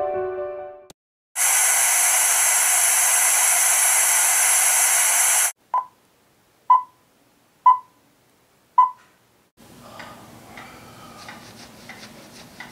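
A piano tune ends in the first second. Then comes a loud, steady static hiss for about four seconds that cuts off suddenly, followed by four short beeps about a second apart, the countdown-leader beeps of an old film reel. Near the end there is faint room sound with small clicks.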